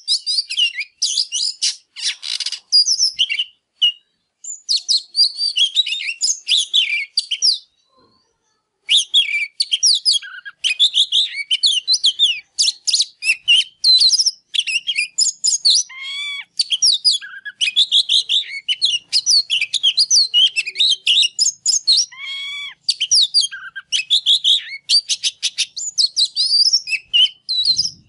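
Caged oriental magpie-robin in full song: a fast, loud stream of varied high whistles, trills and chattering notes. There are short pauses about 4 and 8 seconds in.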